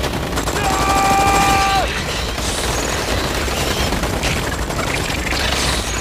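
Sustained automatic gunfire, many rapid shots without a break. About a second in, a long held yell rises over it and lasts about a second.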